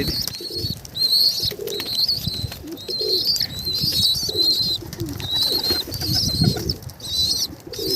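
Domestic pigeons cooing, with a run of short high chirps repeating throughout.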